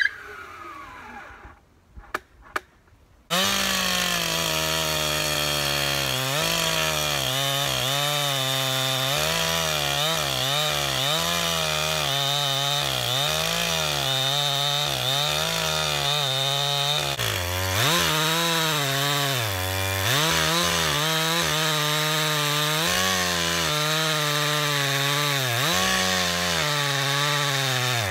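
After a few faint knocks, a gas chainsaw comes in about three seconds in and runs at full throttle, ripping lengthwise along a log with a Beam Machine guide. Its engine note wavers and dips briefly a few times as the chain loads up in the cut.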